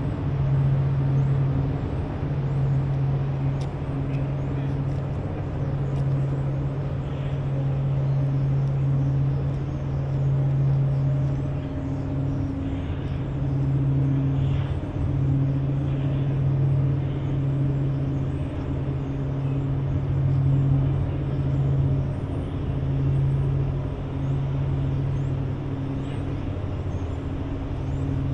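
Diesel engines of the Great Lakes freighter H. Lee White, a pair of EMD diesels, running in a steady low hum that swells and dips slightly.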